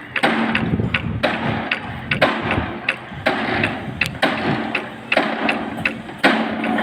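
Repeated knocks, roughly one a second, each followed by a scraping clatter, typical of construction work such as handling formwork.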